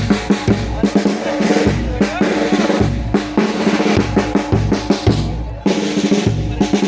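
Street band playing a pasacalle march: held wind-instrument notes over a steady snare drum and bass drum beat.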